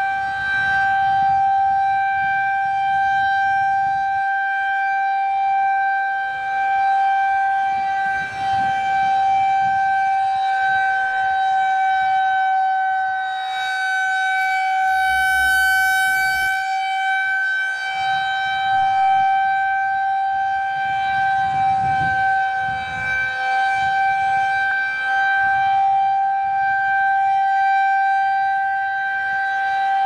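Federal Signal 2001-130 electronic outdoor warning siren sounding a steady single-pitch tone during its test. The loudness swells and dips as the rotating horn sweeps past.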